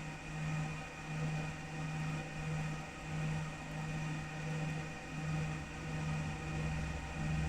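Laser back-glass removal machine running: a steady low hum that swells and fades in an even pulse about every 0.7 seconds, with faint steady high tones above it.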